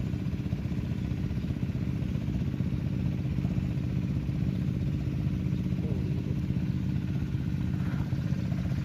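A small engine running steadily at constant speed, a low hum that does not change.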